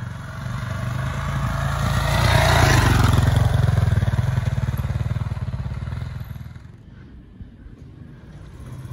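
Motorcycle engine running, swelling louder over the first three seconds and then fading away.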